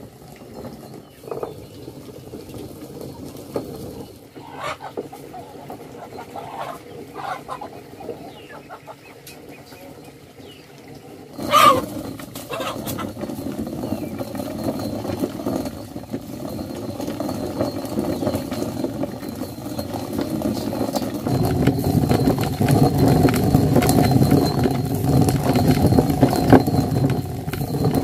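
Hand-turned stone mill grinding dried corn kernels, a continuous gritty grinding that grows louder about three-quarters of the way through. Chickens cluck in the quieter first part, and a single sharp knock comes a little before halfway.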